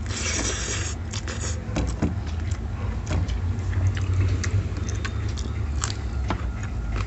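A person eating rice and curry by hand: chewing and small mouth sounds, with fingers scraping and mixing rice on a steel plate, giving scattered light clicks. A short hiss comes in the first second, and a steady low hum runs underneath.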